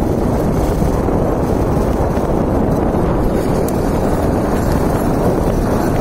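Wind buffeting a phone microphone, a loud, steady rumbling rush with no clear hoofbeats standing out.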